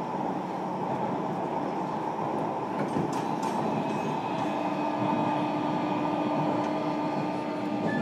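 JR Kyushu 305 series electric train running, heard from inside the car above the brake controller: a steady rumble of wheels on rail. A steady hum joins it about four and a half seconds in.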